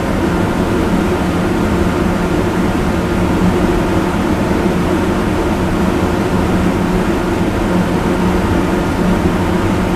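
Extremely loud fan running steadily: a constant rush of air with a low hum through it.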